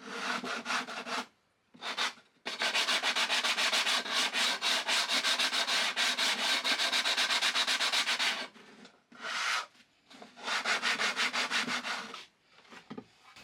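Sandpaper rubbed by hand on a plywood drawer in quick, even back-and-forth strokes, about five a second, in runs with short pauses. It is taking down a high spot on the drawer's top edge that made it rub, so that it slides in smoothly.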